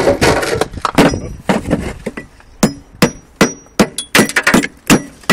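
Bricklayer's hammer striking an old reclaimed brick to chip off the old mortar. A quick run of knocks and scraping in the first two seconds, then about ten sharp, ringing blows, two or three a second.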